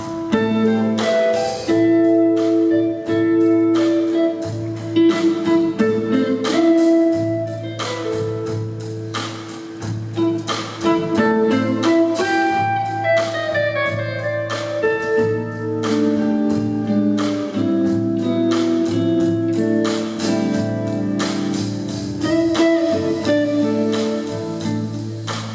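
Live jazz trio playing: an electric guitar holds ringing melody notes over a steady low bass line, with drums and cymbals struck throughout.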